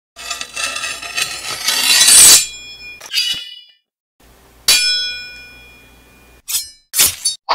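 Metallic ringing sound effects: a swell that grows louder for about two seconds and cuts off, then a single strike that rings and fades, then a few quick sharp hits near the end.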